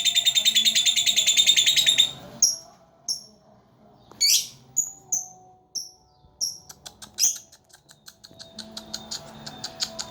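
Lovebird 'ngekek': a long, rapid chattering trill for about the first two seconds, then scattered short high chirps, and from about seven seconds a fast run of ticking notes. It is the lovebird's extended chatter song that keepers play to coax other lovebirds into singing.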